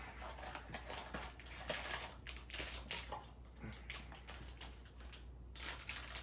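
Small vinyl toy figures being picked up and set down one after another on a cloth-covered table, a run of light, irregular taps and clicks.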